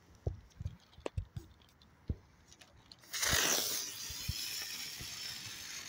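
A ground firework catching with a sudden loud hiss about three seconds in, then burning on with a steady hiss of spraying sparks. A few scattered light knocks and ticks come before it.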